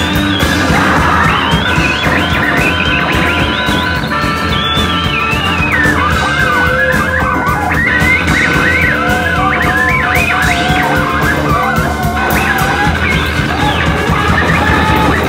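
Live rock band playing loud: electric guitar and drums, with a high lead line that slides and wavers up and down in pitch over steady held notes.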